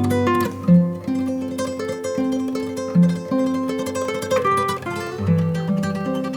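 Background music: plucked guitar playing a melodic instrumental line.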